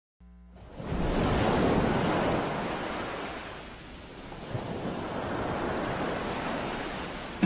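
Rushing noise sound effect under an animated title sequence. It swells in about a second in, dips about halfway through, and swells again.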